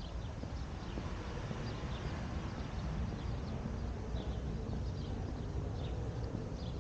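Birds chirping in short scattered calls over a steady low rumble of outdoor ambience, with footsteps on paving stones.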